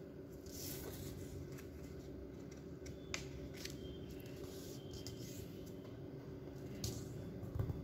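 Faint rustling and creasing of a sheet of origami paper being folded into a triangle and pressed flat by hand, with a few sharp crinkles.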